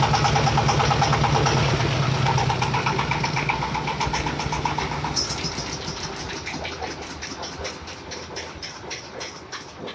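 AMEC S1125 single-cylinder diesel engine on a corn sheller running steadily, then shut down about five seconds in: its even beat slows and fades as it coasts to a stop.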